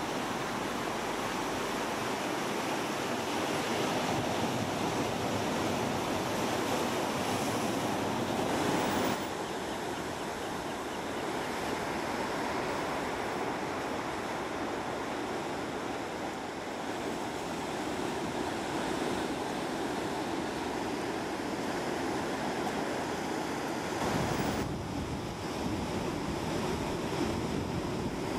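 Heavy ocean surf washing and breaking in a large swell, with wind on the microphone. The sound shifts abruptly about nine seconds in and again near the end.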